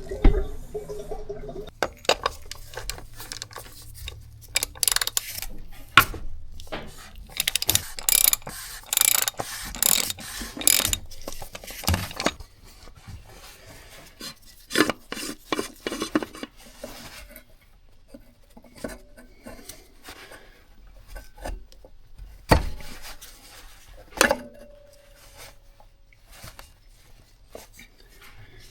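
Hand tools and metal parts clinking, scraping and rattling while the oil filter is worked loose and removed, with irregular knocks and a clank late on that rings briefly.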